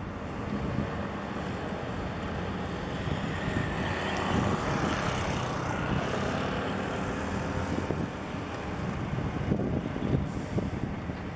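Steady low engine rumble mixed with wind buffeting the microphone. The noise swells for a few seconds in the middle.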